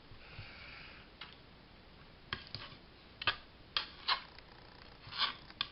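Scattered light clicks and taps of paper and card being handled and set down on a craft table while a glued piece is positioned, about eight sharp ticks at uneven spacing.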